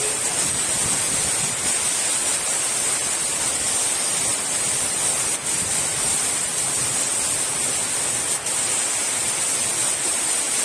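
Steady hiss of rain falling, mixed with wind rushing through coconut palm fronds.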